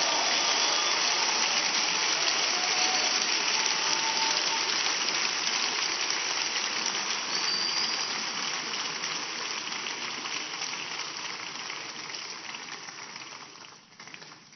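A large congregation applauding, a long round of clapping that dies away over the last few seconds.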